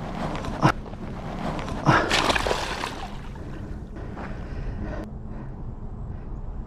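A bass released by hand back into the pond, hitting the water with a splash about two seconds in, after a short thump a second earlier; wind rumbles on the microphone.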